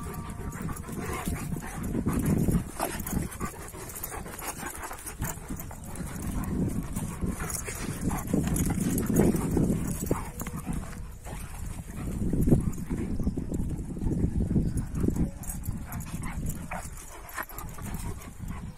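Kangal dogs growling while they wrestle, in rough low bursts that swell and fade several times, with paws scuffing and clicking on dry dirt.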